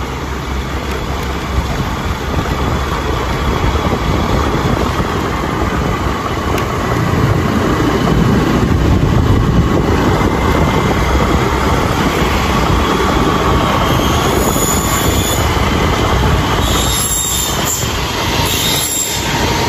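Motorbike running at steady road speed, with constant wind rush on the microphone, and a few short high squeals near the end.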